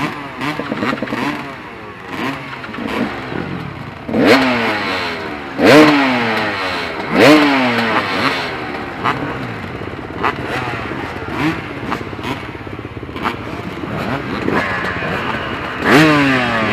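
Off-road dirt bike engines idling, with sharp throttle blips that rise and fall in pitch, loudest about four, six and seven seconds in and again near the end.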